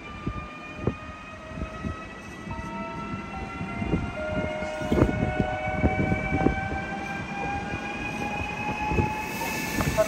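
Newag Impuls electric multiple unit running past at close range, accelerating. Its traction motors whine in several tones that climb slowly in pitch, over irregular clunks of the wheels on the rails.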